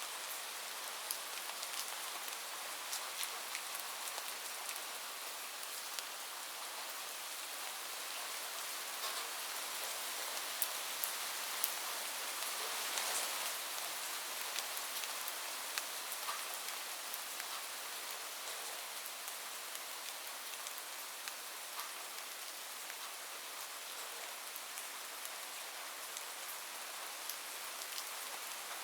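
Steady rain falling on a roof, an even hiss with many scattered sharp drop ticks; it swells slightly a little before the middle.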